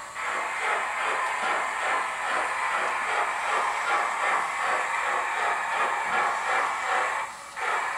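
Steam locomotive sound from the DCC sound decoder in a Hornby OO gauge Merchant Navy class model, played through its small loudspeaker. Rhythmic exhaust chuffs run over a steady hiss, with a short break about seven and a half seconds in.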